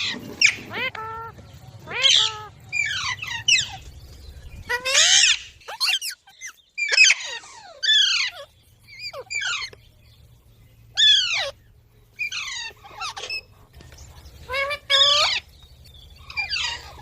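Pet green parrot calling over and over: a run of short, harsh, shrill squawks with sliding pitch, one every second or so, broken by brief pauses.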